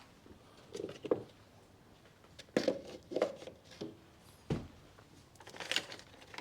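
Short, scattered clicks, knocks and rustles of hand-work on the brake fluid reservoir and its filter, with one duller thump about four and a half seconds in.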